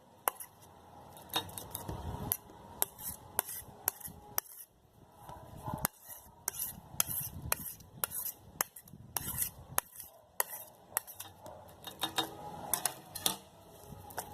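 A spoon scraping and clinking against a small plate as slime is scraped up and mixed, with sharp, irregular clinks.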